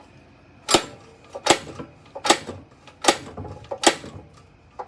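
Recoil pull-start of a DeWalt pressure washer's small engine yanked five times in a steady rhythm, each tug a sharp clack, about one every 0.8 s. The engine does not turn over: it is completely seized, having been found with no oil.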